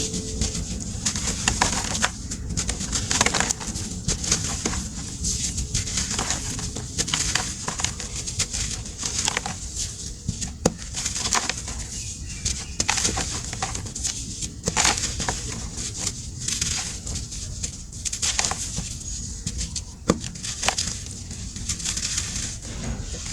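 Crumbling and crunching of a brittle material by hand, with irregular crackles and sharp snaps scattered through it, a few of them louder.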